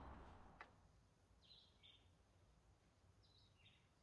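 Near silence with faint bird chirps: two pairs of short notes, each a higher note followed by a lower one, about a second and a half apart.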